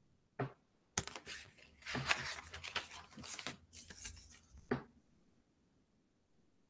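Paper pages of a thin picture book being turned and handled: a tap, then about four seconds of rustling and crinkling paper, ending with a knock.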